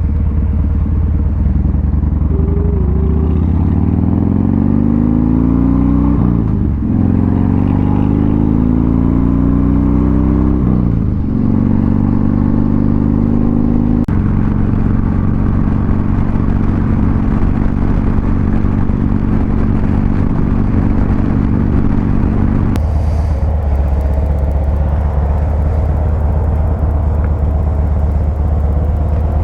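Motorcycle engine accelerating, rising in pitch through two upshifts, then holding a steady cruise before easing off the throttle about 23 seconds in.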